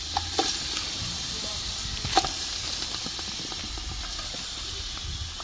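Steady sizzling hiss from a hot pot as pieces of raw goat skin are dropped into it, with a few light knocks as pieces land, about twice near the start and once a couple of seconds in.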